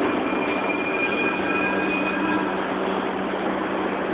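New York City Subway 1 train (R62A cars) pulling into the station, with a steady rumble and hum of wheels and motors. A thin high squeal runs for about two seconds, starting half a second in.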